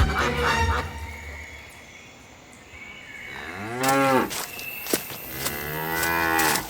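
A cow mooing twice: a short call about four seconds in and a longer one near the end.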